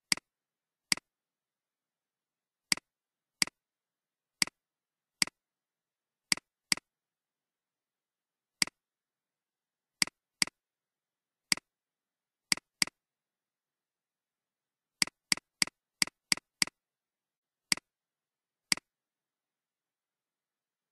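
Computer mouse clicks: about twenty short, sharp clicks at irregular intervals, some in quick pairs and a quick run of six about three quarters of the way through, with silence between.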